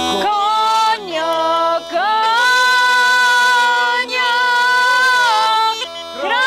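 A man and a woman singing a Rhodope folk song together in long held, slowly bending notes, with short breaks between phrases. A kaba gaida (Rhodope bagpipe) drone cuts off just as the singing begins.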